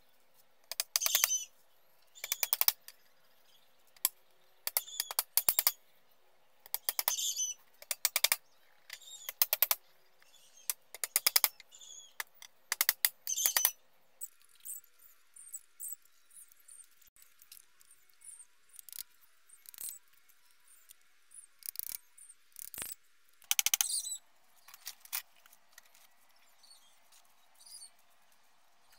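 Hammer nailing split-bamboo slats: quick runs of sharp taps every second or two, thinning to scattered single taps about halfway through, with one more run later on.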